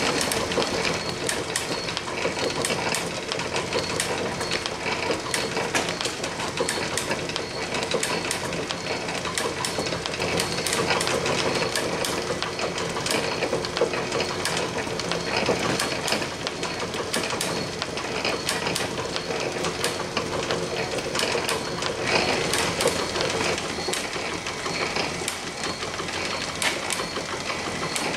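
Atlas 7B metal shaper running under power, its ram stroking back and forth as the lathe bit planes a cut in aluminum. The machine runs steadily with regular clicks, typical of the ratcheting automatic table feed stepping the work over each stroke.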